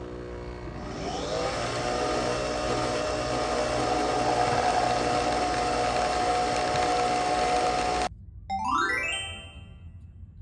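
Background music of steady sustained tones that swell up about a second in and cut off abruptly about eight seconds in. A quick rising chime-like run follows.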